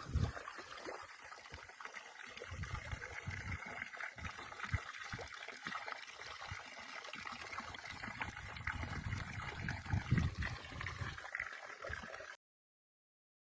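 Stream water trickling and gurgling, with irregular low rumbles underneath. The sound cuts off abruptly about twelve seconds in.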